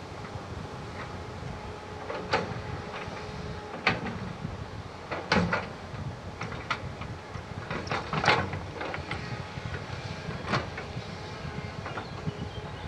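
Doosan DX180 LC hydraulic excavator's diesel engine running steadily, with a string of sharp knocks and clanks as the machine works, the loudest about eight seconds in.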